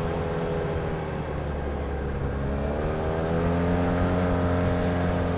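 Arctic Cat Wildcat Trail UTV's twin-cylinder engine running while driving along a dirt trail. Its pitch rises about two seconds in as it speeds up, then holds steady.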